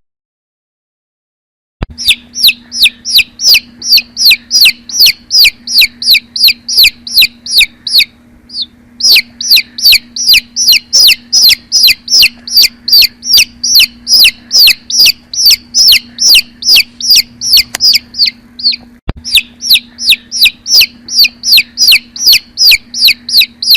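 Domestic chicks peeping: a fast, steady run of high, downward-sliding peeps, about three a second, beginning a couple of seconds in, with one brief pause partway through.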